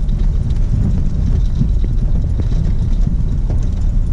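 Car driving along a rutted dirt track, heard from inside the cabin: a loud, uneven low rumble of engine and tyres with scattered small knocks and rattles.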